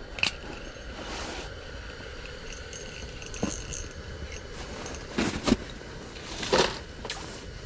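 A few short scrapes and knocks of fishing gear being handled, over a steady low hum.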